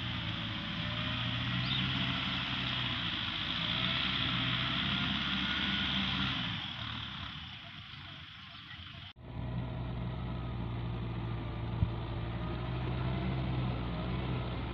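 Farm tractor engine running steadily as it pulls a rotary tiller through dry rice stubble. It is distant at first, with a high hiss over it. After a sudden cut about nine seconds in, it is close and fuller.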